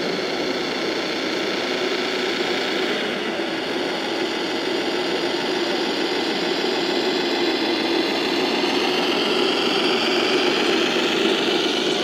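Steady engine-like drone with a hiss of noise from a scale RC Scania truck pulling a car-transporter trailer, growing a little louder toward the end as the truck comes close.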